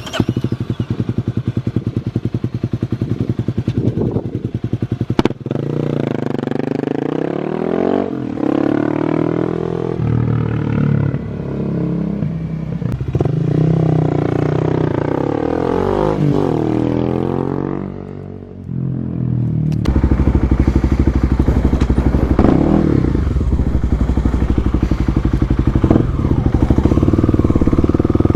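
2018 Kawasaki KLX250's fuel-injected single-cylinder engine running through an FMF Q4 exhaust. Its pitch rises and falls repeatedly through the middle, dips briefly, and then runs louder and steadier near the end.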